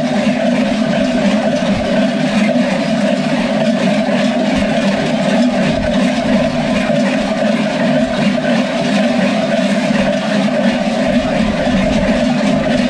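Many large goat bells worn by Skyros Geroi masqueraders ringing together in a continuous, loud, dense clanging din as the wearers move.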